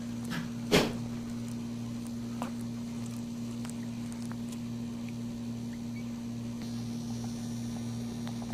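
Steady low electrical hum, with one sharp knock just under a second in and a few faint clicks after it.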